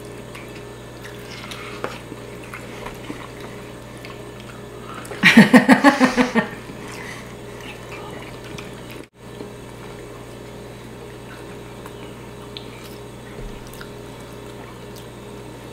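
People eating at a table, with faint chewing and small clicks of food and fingers over a low steady hum. About five seconds in comes a short burst of laughter, about a second long, in quick pulses.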